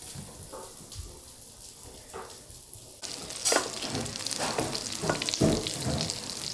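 Jeon sizzling as they fry in oil in a pan. The hiss is faint at first, turns louder and steadier about three seconds in, and a few short utensil clatters sound over it.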